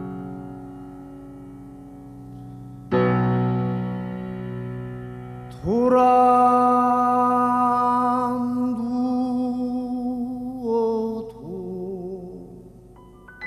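Piano chords ringing and fading, with a new chord struck about three seconds in. Midway a male voice enters with one long held note, sliding up into pitch and then wavering with vibrato, followed near the end by a second, softer held note, in a Korean traditional sorikkun singing style.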